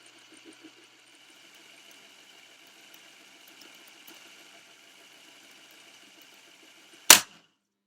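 8mm video tape rewinder running with a faint steady whir, then a single loud sharp clack about seven seconds in, after which the whir stops.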